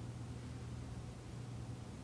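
Quiet room tone: a steady low hum with a faint even hiss.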